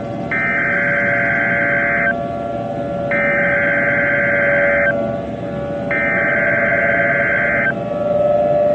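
Emergency Alert System SAME header: three bursts of buzzing digital data tones, each nearly two seconds long with about a second between them, over a steady background drone.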